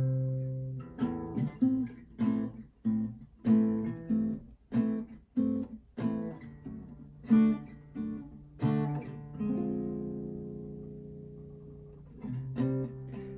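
Acoustic guitar played solo: a run of picked notes and chords, then a chord left to ring and die away for a few seconds before the picking starts again near the end.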